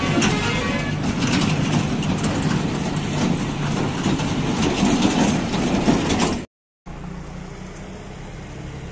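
Tractor engines running steadily as sugarcane-laden trailers are hauled. The sound drops out abruptly for a moment after about six and a half seconds and comes back as a quieter steady engine hum.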